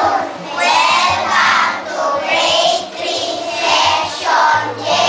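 A class of young schoolchildren singing together in unison, loud and in rhythmic phrases.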